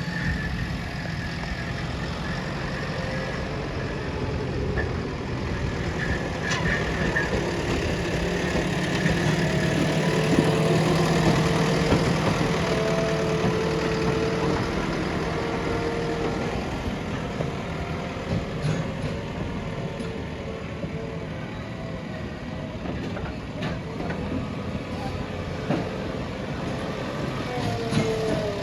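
Backhoe loader's diesel engine running steadily, getting louder and working harder for a few seconds near the middle, with a whine over the engine and a few clanks.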